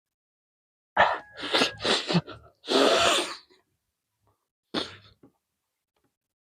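A person coughing close to the microphone: a quick run of harsh bursts ending in a longer one, then a single cough a couple of seconds later.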